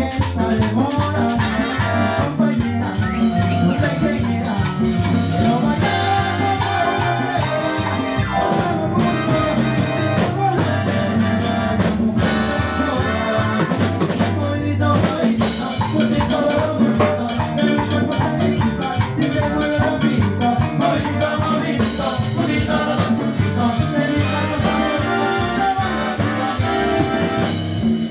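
A tropical dance band playing salsa-style music, with trumpets, drum kit and percussion over a steady beat, and some singing.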